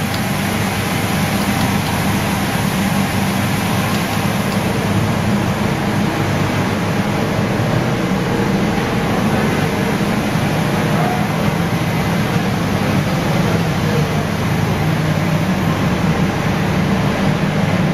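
Steady machinery drone of a running PVC coating line for welded wire mesh: a low hum under a broad, even rush that does not change.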